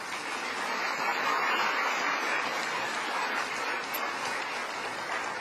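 Audience applauding, swelling to its loudest about a second and a half in and then slowly easing off.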